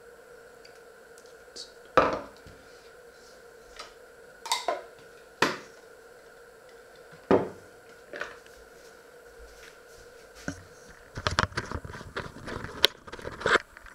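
Kitchen things being handled on a wooden table: scattered sharp clicks and knocks, one loud knock about two seconds in, then a dense run of rattling and clattering in the last three seconds.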